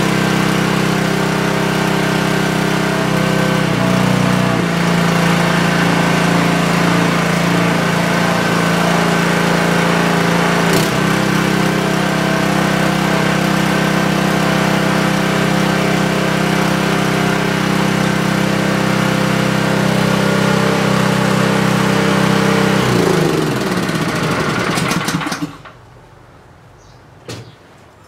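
Honda GX200 single-cylinder four-stroke engine on a long-tail mud motor running steadily, its speed shifting briefly about four seconds in as the controls are worked. Near the end it is shut off, its note falling as it winds down to a stop.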